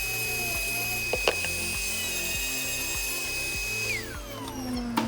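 Dremel 3000 rotary tool running at a steady high whine, then winding down about four seconds in as it is switched off.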